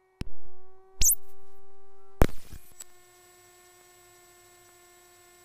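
Three sharp clicks, each followed by a short burst of sound that fades, then a faint steady electrical hum of several fixed tones with a thin high whine above it.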